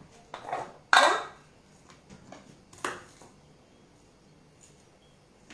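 Kitchen items being handled: a brief rustle, then a sharp clank with a short ring about a second in, and a lighter knock about two seconds later.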